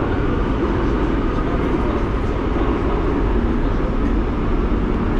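Metro train running at speed between stations, heard from inside the carriage: a steady rumble of wheels and running gear with a constant low drone.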